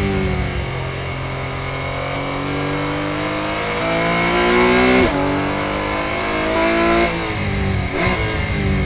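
Porsche 718 Cayman GT4 Clubsport's flat-six engine heard from inside the cockpit, pulling hard in second gear with its pitch climbing steadily. About five seconds in the pitch falls sharply and then climbs again, with a second sharp drop about two seconds later.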